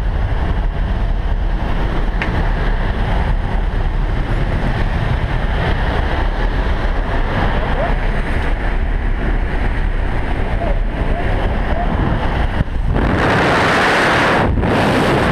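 Steady rush of wind and the jump plane's engine noise through the open door of a skydiving aircraft, buffeting the microphone. About 13 s in it turns into a smoother, hissier rush of air as the camera leans out into the slipstream.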